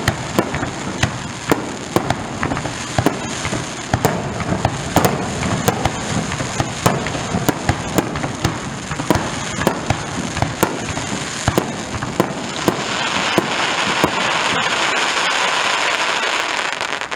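Aerial fireworks bursting in rapid succession: many sharp bangs and pops. For the last few seconds a louder, steady crackling hiss takes over.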